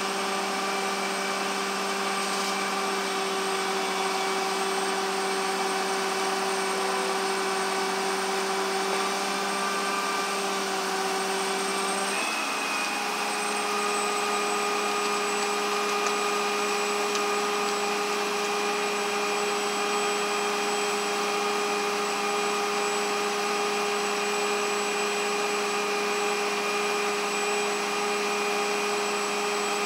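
Steady machine hum with a clear pitched whine that shifts slightly in pitch about twelve seconds in.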